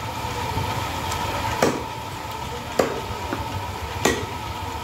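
Meat cleaver chopping goat meat on a wooden butcher's block: three sharp strikes about a second apart, with a fainter knock or two between.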